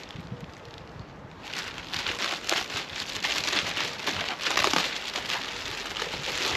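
Clear plastic packaging wrap crinkling and rustling as it is pulled off a folded carp fishing bed. It is quiet for the first second and a half, then turns into busy, continuous crinkling that is loudest a little after the middle.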